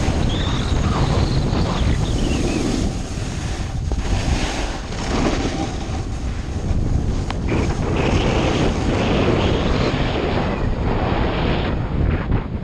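Heavy wind buffeting the microphone from riding downhill at speed on a snowboard, with the board's base and edges hissing and scraping over the snow in surges.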